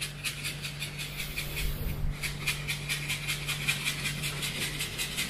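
A seasoning packet being shaken over a frying pan of simmering tomato sauce, making a rhythmic papery crackle about five times a second, over a steady low hum.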